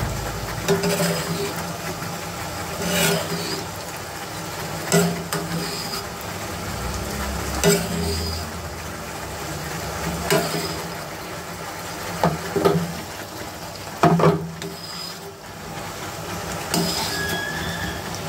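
Fried eggs sizzling steadily in a pan of garlic and fish sauce, while a metal spoon scrapes and taps against the pan about every two seconds as it works the sauce around the eggs.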